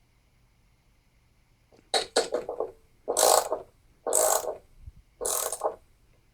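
Ratchet wrench clicking in short strokes, tightening mounting nuts on a small engine after the gasket has been fitted. The strokes start about two seconds in and come roughly once a second, four or five in all.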